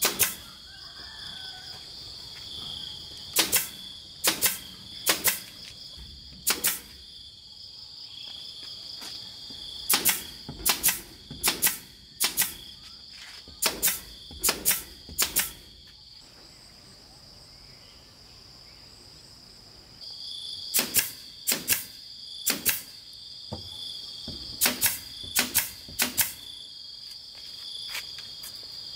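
Pneumatic nail gun firing nails into wooden boards: about twenty sharp shots in quick clusters of two to five, with a pause of a few seconds past the middle. Steady insect shrilling runs behind.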